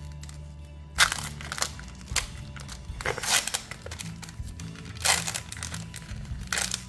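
Foil booster-pack wrapper crinkling in several sharp bursts as it is handled and opened, over soft background music.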